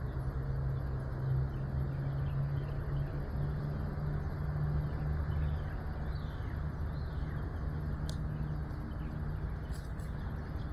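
A steady low mechanical hum over a haze of noise, with two short clicks near the end.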